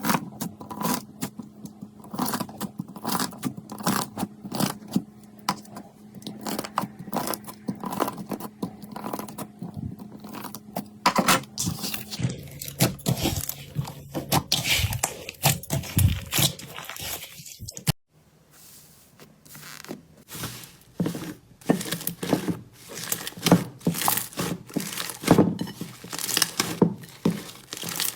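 Slime being squeezed, pressed and stretched by hand, giving dense, irregular sticky pops and crackles. The sound drops out briefly about two thirds through, then the popping resumes.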